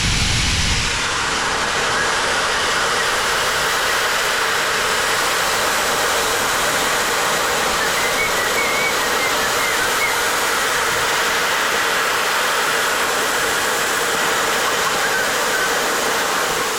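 Compressed air blowing out of a Kobalt air compressor tank through an open valve as the tank is emptied before draining its water: a loud, steady hiss, with a heavier rush in the first second.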